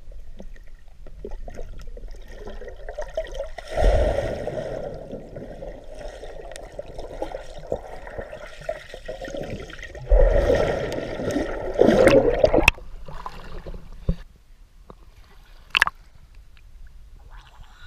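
Muffled underwater churning and bubbling of lake water, heard with the microphone submerged, as a swimmer kicks through it. Loud rushing bursts come about four seconds in and again from about ten to thirteen seconds. It goes quieter once the microphone is above the surface, with one sharp click near the end.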